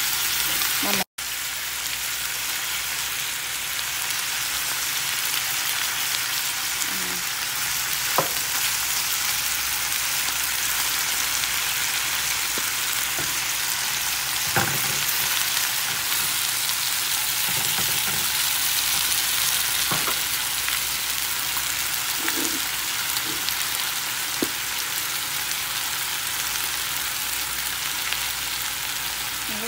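Chicken and potato sticks sizzling steadily in a frying pan, with a few faint clicks and knocks from a utensil. The sound cuts out for an instant about a second in.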